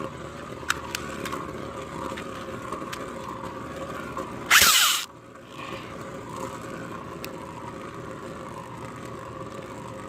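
3D-printed beyblades spinning and grinding in a plastic stadium, a steady whir broken by sharp clicks as the tops knock together. About four and a half seconds in comes one loud, half-second rasping burst, louder than anything else.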